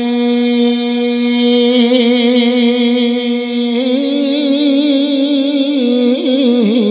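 A man's voice singing a Punjabi naat, holding one long drawn-out note. The note wavers and steps up in pitch about four seconds in, then breaks into quick ornamental turns near the end.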